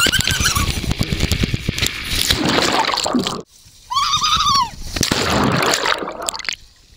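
Water splashing and sloshing as a person plunges through a tube into a pool. A short, high-pitched yell comes about four seconds in.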